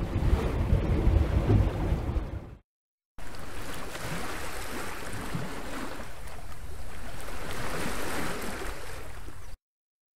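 Ocean surf and wind, heavy with low rumble, cutting off abruptly about two and a half seconds in. After a brief dead silence a second, hissier stretch of surf runs on and cuts off suddenly near the end.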